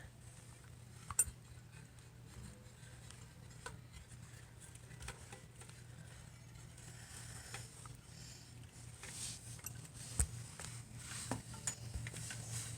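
Scattered light clicks and clinks as a plastic LED light tube is worked in between bicycle wheel spokes, with a sharper tick about a second in and again near ten seconds.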